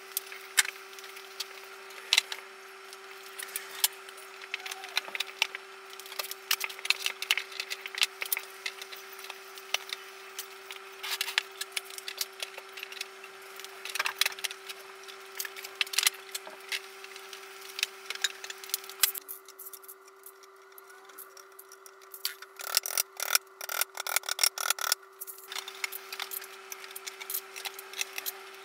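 Repeated light clicks and knocks of particleboard drawer panels being handled and fitted together, with a quicker run of sharper clicks a few seconds before the end, over a steady faint hum.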